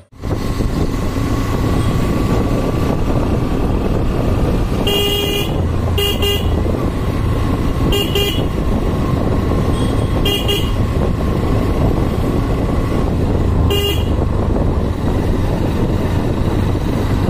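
Hero Xtreme 125R motorcycle riding along with steady engine and wind noise, its horn sounded in about six short beeps, the first one longer.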